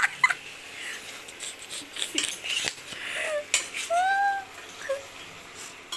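Metal utensils clinking and scraping against pots and pans during cooking, in scattered sharp clicks, with a short cat meow about four seconds in.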